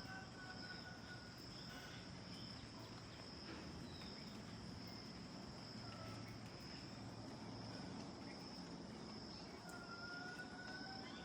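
Steady high-pitched insect trill running throughout, with a few short bird whistles and one longer, level bird whistle near the end.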